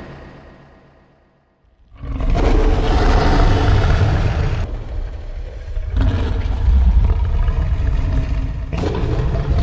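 Designed sound effects: one effect fades out to a brief silence, then a new loud, deep rumbling effect starts about two seconds in and changes character a few times.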